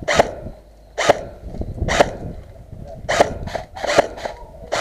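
Airsoft gunfire: about five sharp single shots, roughly a second apart.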